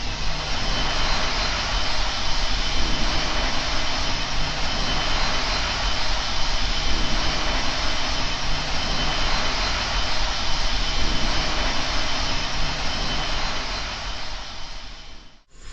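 Steady rushing noise with a deep rumble underneath and a few faint, high, steady tones, like a jet engine. It cuts off suddenly near the end.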